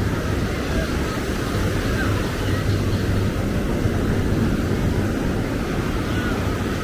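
Steady low rumble of wind buffeting the microphone over the wash of surf, with no single event standing out.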